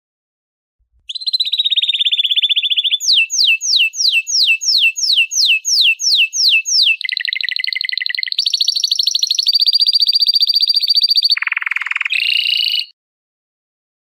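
Domestic canary singing a phrased song. It opens with a rapid trill, then gives a run of falling whistles at about three a second, then several fast trills at different pitches, ending with a lower, rattling trill.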